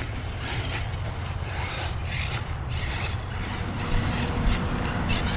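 Footsteps crunching and scuffing on a dry dirt track, a bit under two a second, over a steady low rumble of wind on the microphone.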